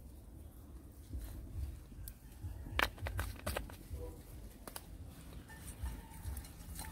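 A plastic spice shaker being handled while fish is seasoned in a ceramic bowl: a short cluster of sharp clicks and taps about three seconds in, and another click near five seconds, over a steady low rumble.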